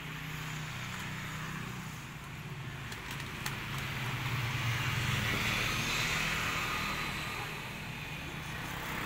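Street traffic with a steady low engine hum, swelling about four to six seconds in as a motorbike goes by close.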